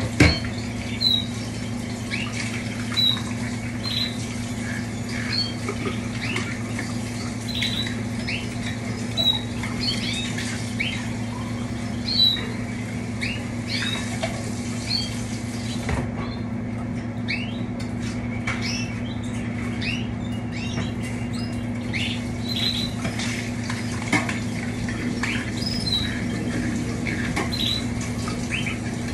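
Many caged canaries calling with short, scattered chirps, some louder than others, over a steady low electrical hum.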